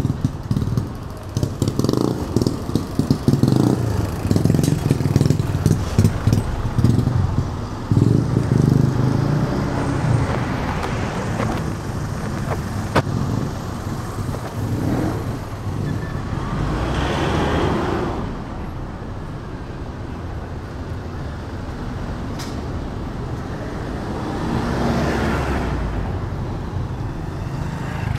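Street traffic: motor vehicles running and passing by, with two louder passes, one past the middle and one near the end.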